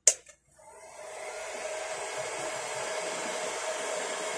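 Handheld heat gun switched on with a sharp click, its fan and airflow building up over about a second to a steady blowing hiss with a hum. It is reheating the solder joints under a chip on a circuit board, for a suspected lost connection.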